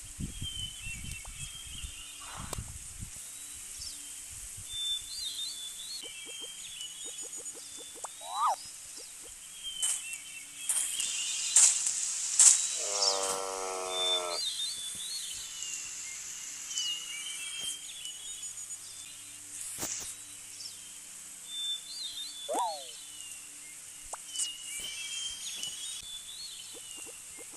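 Outdoor ambience with birds calling in short high chirping phrases every few seconds. About halfway through comes one longer, lower animal call of about a second and a half.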